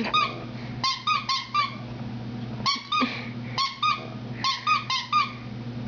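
A dog giving short, high-pitched yips and whimpers in quick groups of two to four, over a steady low hum.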